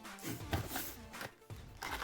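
Soft background R&B music, with a few short rustles and knocks of objects being handled.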